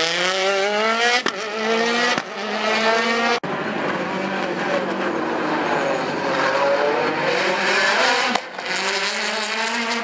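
Hyundai i20 WRC rally car's turbocharged four-cylinder engine accelerating hard, its pitch climbing and breaking briefly at quick gear changes about one and two seconds in. It then runs at high revs for several seconds, cuts off sharply near the end and climbs again.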